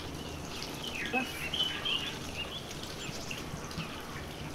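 Small birds chirping in short, quick phrases over a steady low background noise.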